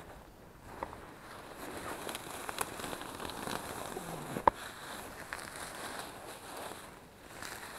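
Campfire of dry deadwood and grass kindling crackling, with scattered sharp pops and one loud snap about halfway through.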